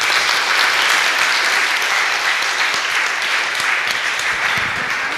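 Audience applauding at the end of a talk: dense, steady clapping from many hands.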